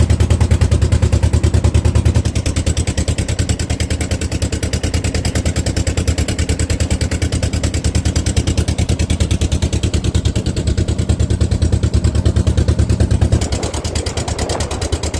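Boat engine running steadily with a fast, even low throb, dropping in level near the end.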